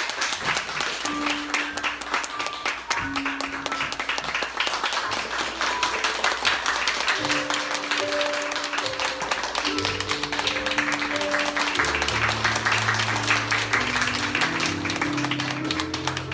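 Audience applause, dense and steady, over music; low bass notes come in about ten seconds in.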